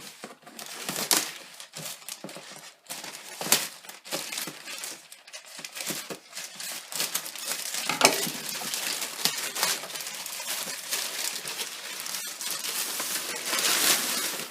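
Shipping packaging being handled and opened: irregular crinkling and rustling with sharp clicks and a few louder crackling bursts, as a parcel is unwrapped to get at the box inside.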